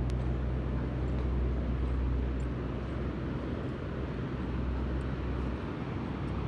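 Sea surf washing steadily onto the beach, an even wash of noise over a low steady rumble; the sea is calming after days of rain and wind.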